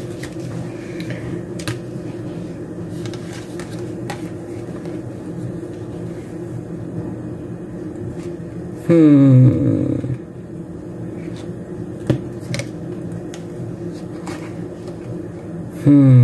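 A steady low hum under faint clicks and paper handling as a sticker book is pulled out and laid over a planner. Twice a short, loud sound falls in pitch: once about nine seconds in and again at the end.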